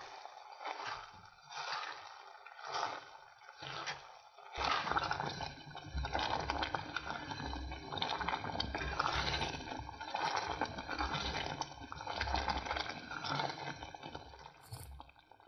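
A wooden spatula scraping and stirring sugar through cooked azuki beans in a stainless steel saucepan, in separate strokes about every half second. About four and a half seconds in it turns to a wet, gurgling stir as the sugar draws the water out of the beans, and it fades near the end.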